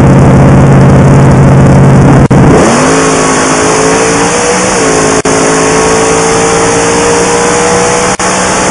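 Supercharged Hemi V8 of a funny car at full throttle on a drag-racing pass, heard from inside the cockpit and loud enough to overload the microphone. The note breaks off briefly about two seconds in, then comes back higher and climbs. There are two more short breaks later.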